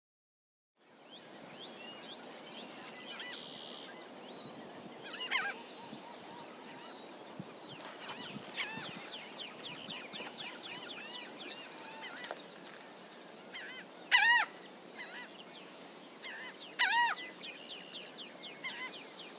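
Saltwater marsh ambience: a steady, high-pitched insect drone with many short bird chirps and whistled calls over it, fading in about a second in.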